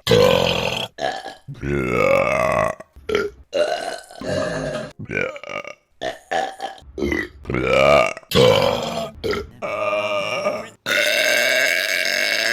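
Women burping loudly, about a dozen burps one after another from different recordings, some short and some drawn out. The last one, starting near the end, is long and steady.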